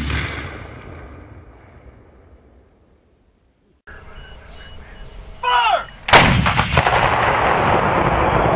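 The fading rumble and echo of an 84 mm Carl Gustaf recoilless rifle shot, dying away over about three and a half seconds. About six seconds in, a towed artillery howitzer fires: a loud blast whose rumble carries on for about three seconds.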